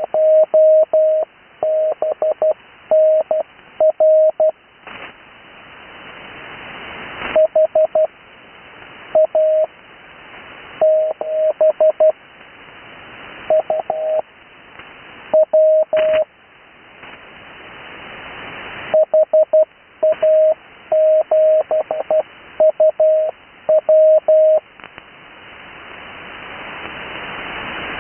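Morse code (CW) callsigns sent as a single steady beep keyed on and off in groups of dots and dashes, with pauses of a second or more between callsigns. Radio receiver hiss lies under the beeps and swells during each pause.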